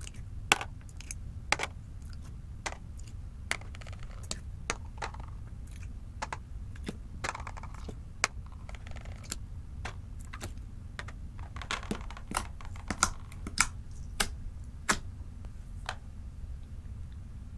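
Small glass nail polish bottles being lifted off a glass dish and set down on a hard surface, giving a string of irregular sharp clicks and taps over a steady low hum.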